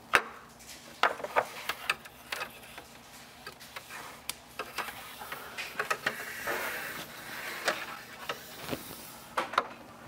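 Plastic water-line tubing of a refrigerator water filter head assembly sliding and rubbing as it is fed through the opening in the fridge liner, with scattered light plastic clicks and knocks from handling; the longest stretch of rubbing comes about six to seven seconds in.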